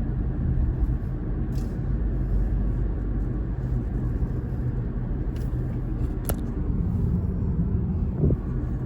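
Car driving slowly, heard from inside the cabin: steady low engine and road rumble, with a brief click about six seconds in.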